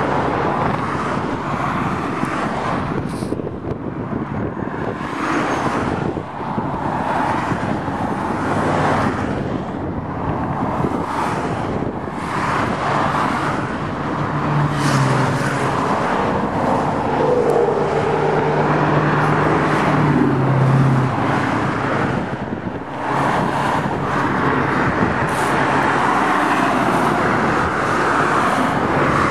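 Road traffic and car engines running, a steady engine hum under traffic noise. The hum grows louder for several seconds about halfway through, and its pitch drops near the end of that stretch.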